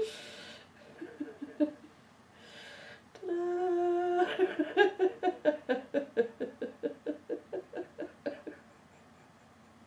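A person laughing hard: scattered giggles and breathy gasps, then a held high vocal note a little past three seconds in that breaks into a long run of rhythmic laughing, about four pulses a second, that gradually fades.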